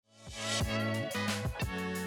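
Music fading in, with sustained chords, a wavering melody line and a regular beat.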